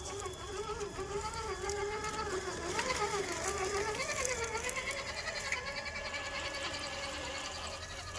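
Electric motor and drivetrain of an RC scale crawler truck whining as it crawls over sand and reeds, the pitch rising and falling with the throttle. A fast, faint ticking sits above it in the second half.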